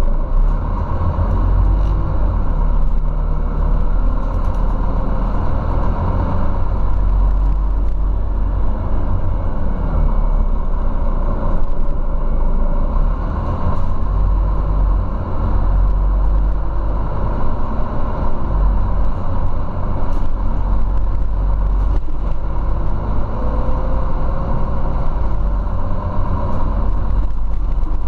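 Scania CityWide Euro 6 city bus with a ZF automatic gearbox, heard from inside the passenger cabin while driving: a steady low engine and road rumble, with the engine note rising and falling several times.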